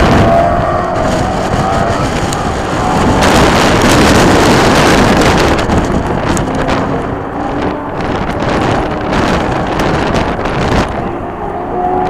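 Race-prepared muscle car engines running on a circuit, one car's engine pitch sounding and fading in the first second and another's coming in near the end. Heavy wind rush on the microphone fills the middle and is loudest about three to six seconds in.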